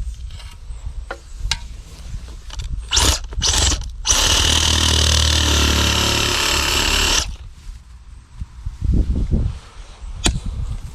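Reciprocating saw cutting through a tree root: two short bursts about three seconds in, then a steady run of about three seconds that stops suddenly, followed by a few knocks.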